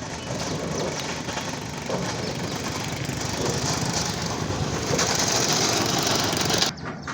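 Motorcycle engine running with a dense, crackling rattle, getting louder about five seconds in and cutting off abruptly near the end.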